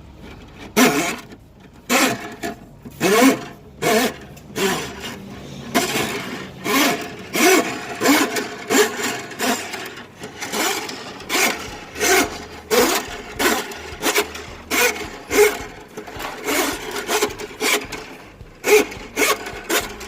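Steel drain-snake cable being pushed by hand into a Milwaukee Switch Pack drum, scraping and rasping with each push, about one or two pushes a second, as the drum turns and winds the cable up.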